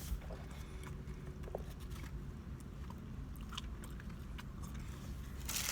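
A person chewing a mouthful of food close to the microphone, with soft mouth clicks. A louder rustle comes shortly before the end.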